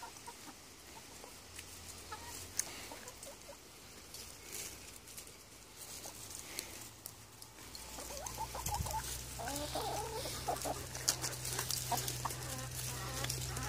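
Chickens clucking softly in short calls, mostly in the second half, over scattered light clicks and rustles. A low steady hum comes in about halfway through.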